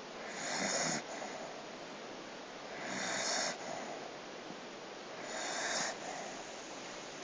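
A dog snoring: three snores about two and a half seconds apart, each swelling through the breath and then cutting off, over a steady background hiss.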